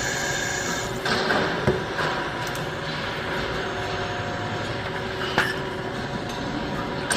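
Metalworking machine tool running steadily with a constant whine of several tones, broken by a few sharp metallic knocks.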